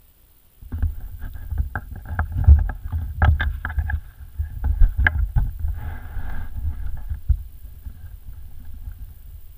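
Downhill board and its mounted camera knocking and bumping as the rider gets on, with many sharp clicks over the first few seconds. Then the board's wheels roll on asphalt with a steady low rumble and wind on the microphone.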